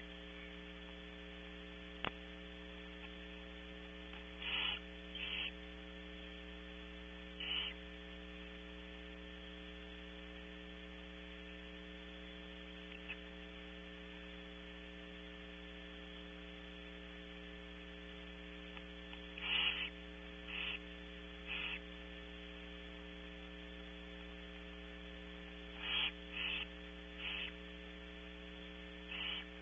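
Barn owls giving short hissing calls in clusters of two or three, over a steady electrical hum. There is a single sharp click about two seconds in.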